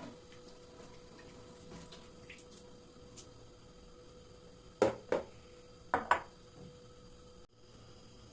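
Kitchenware knocking and clinking in two quick pairs of knocks about five and six seconds in, over small handling sounds and a faint steady hum.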